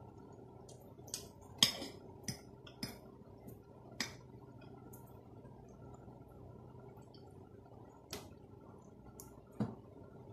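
Metal fork clinking and scraping against a plate while spaghetti is twirled on it: a quick run of sharp clinks in the first four seconds, the loudest a little under two seconds in, then two more near the end.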